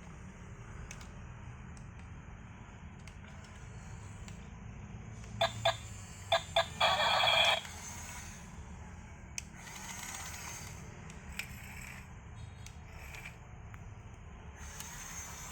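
Toy excavator's electronic sound effects: four short beeps followed by a longer tone of under a second, about six seconds in, over a low steady hum, with a few faint clicks later.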